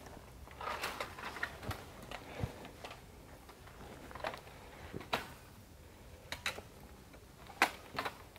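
Hiking footsteps on a rocky mountain trail: irregular crunches and clicks of boots on stone and gravel, the sharpest step near the end.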